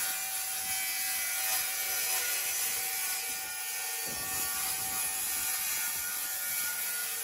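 Cordless drill running continuously at speed in a screw or hole at a metal bracket, a steady motor whine, with a rougher low rattle added about four seconds in.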